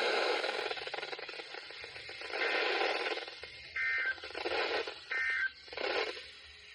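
Weather radio hiss, then two short bursts of two-tone digital warble about a second and a half apart: the EAS SAME end-of-message data bursts that close a NOAA Weather Radio tornado warning broadcast.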